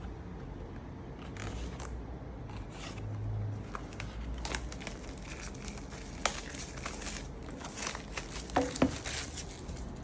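A phone's retail box and its wrapping being handled and opened: crinkling and rustling with scattered light clicks and taps, and a couple of sharper taps near the end.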